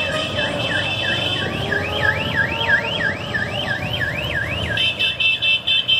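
Electronic car alarm or siren cycling through its tones. A steady tone turns about a second and a half in to fast rising whoops, two or three a second, then near the end to rapid beeping. Car engines run low underneath.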